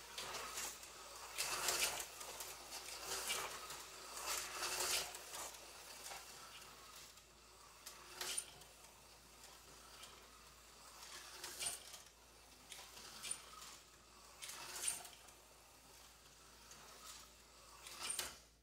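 An Aurora slot car running laps on a small oval track. The whir of its tiny motor and its running noise swell each time it comes round close, roughly every one to three seconds, then fade as it goes away.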